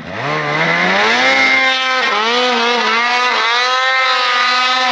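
Snowmobile engine revving hard as the sled pulls away through deep snow. Its pitch climbs over the first second or so, dips briefly about two seconds in, then holds high.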